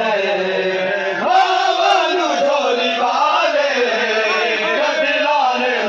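Men's voices chanting a noha, the Shia mourning lament, loud and continuous with the melody rising and falling, over a crowd of mourners.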